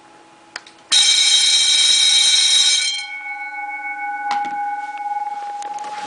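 Red electric vibrating fire-alarm bell (Wheelock type) switched on by remote: a click, then the hammer rings the gong loudly for about two seconds and stops, leaving the gong ringing on and slowly fading, with a knock partway through the fade.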